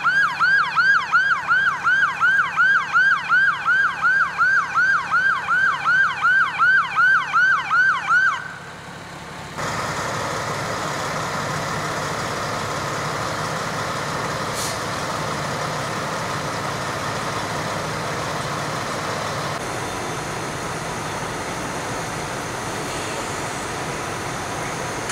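Fire engine siren on a fast yelp, about three quick sweeps a second, for the first eight seconds or so. It stops, and after a short gap a steady drone of running fire apparatus carries on for the rest.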